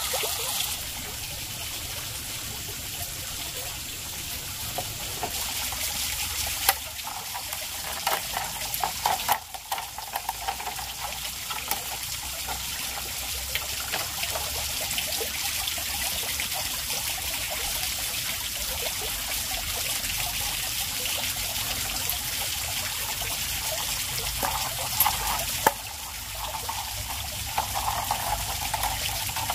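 Bamboo canes being split and scraped into thin strips with a machete, giving bursts of crackling and scraping about a quarter of the way in and again near the end. Under it runs a steady rush of flowing water.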